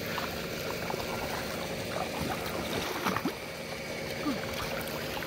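Muddy shallow water splashing and sloshing as someone wades and gropes through it by hand.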